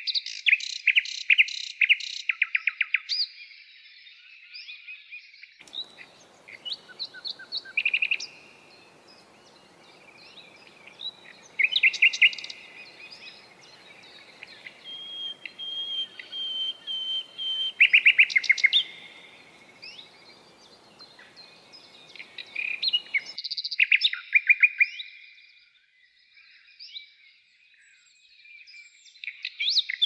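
Small songbirds singing, with phrases of quick, repeated trills and chirps again and again. A faint background hiss comes in about six seconds in and stops about twenty-three seconds in.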